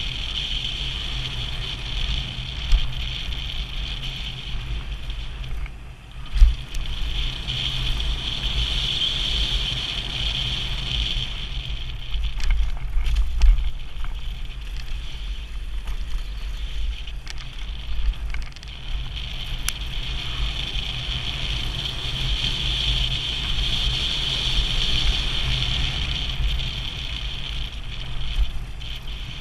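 Mountain bike ridden fast downhill on a gravel and rock trail, heard from a helmet camera: wind rumbling on the microphone over tyre and drivetrain noise, with a steady high buzz that drops out twice. Sharp knocks and rattles as the bike hits rocks, thickest through the middle.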